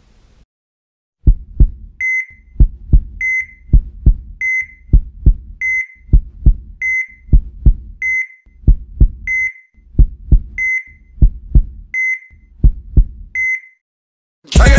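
Heartbeat sound effect: steady lub-dub thumps at a little over one and a half beats a second, each with a short high electronic beep like a heart monitor. Music cuts in right at the end.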